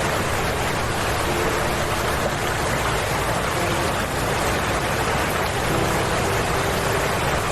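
Steady rushing of water, even and unbroken, with faint short hums coming and going underneath.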